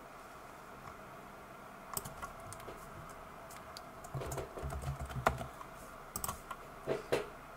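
Typing on a computer keyboard: irregular runs of keystrokes that start about two seconds in, bunch up and grow loudest in the middle, then end with a few last taps shortly before the close.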